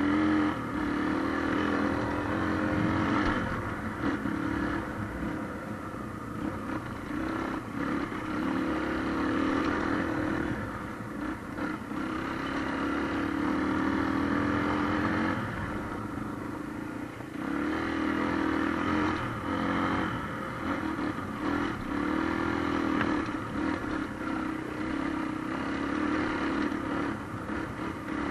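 Motorcycle engine running on a dirt trail ride, its note dropping away and coming back several times as the throttle is closed and opened, with rattling and clatter from the rough ground.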